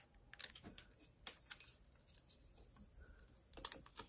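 Faint, scattered clicks and taps of hands taping a transfer onto a ceramic mug: fingernails and tape against the mug, with a small cluster of clicks near the end.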